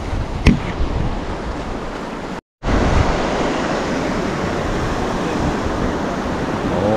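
Steady wash of ocean surf on the shore, with wind rushing on the microphone. A sharp click comes about half a second in, and the sound drops out completely for a moment about two and a half seconds in.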